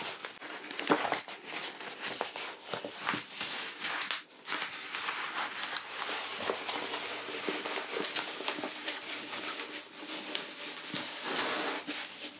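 Crinkling and rustling of a diamond painting canvas and its thick plastic cover film as it is handled and rolled back the other way, a steady crackle full of small sharp clicks.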